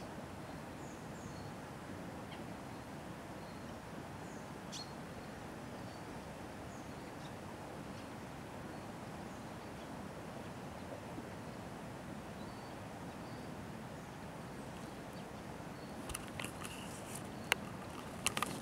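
Steady outdoor ambience, a low even rumble, with faint scattered distant bird chirps; in the last couple of seconds a brief cluster of sharp clicks.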